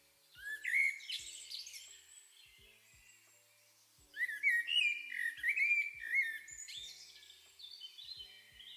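Bird-like chirps and whistles in two busy flurries, over soft background music with faint low beats.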